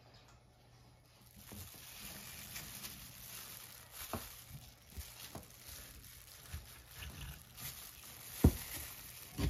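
A chef's knife slicing through a chilled boiled pork hock, with scattered soft knocks and clicks as the blade works through the meat and meets the bamboo cutting board. The sharpest knock comes near the end.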